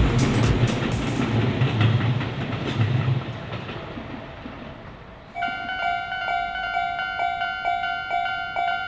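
A train passing over a level crossing, its wheels clicking over the rail joints and the low running noise fading away over the first few seconds. About five seconds in, the Japanese level-crossing alarm starts, ringing its steady electronic 'kan-kan' tone about twice a second.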